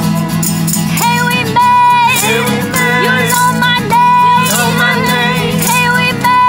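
Live acoustic pop song: a woman singing lead with long held notes, backed by other voices, acoustic guitar and mandolin, with a tambourine and a hand shaker keeping a steady beat.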